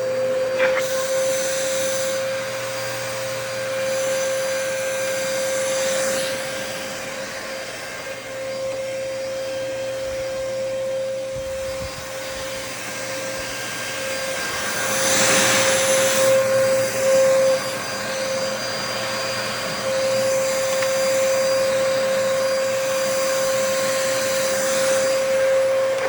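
Dyson DC33 Multi Floor upright vacuum cleaner running with a steady motor whine, its rushing air noise swelling and fading, loudest about halfway through.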